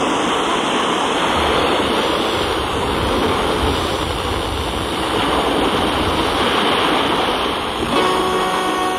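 FM static hissing from a Sangean portable receiver's speaker while it is tuned to a weak, distant station at 97.9 MHz, with the signal lost in the noise. Faint musical tones start coming through near the end.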